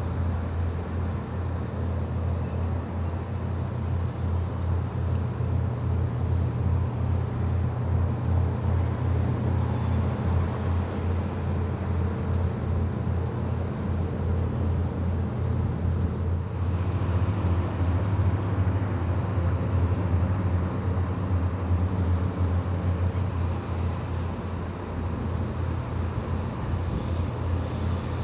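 Tugboat diesel engine running steadily with a low, pulsing throb. A second, higher engine drone joins about two-thirds of the way through.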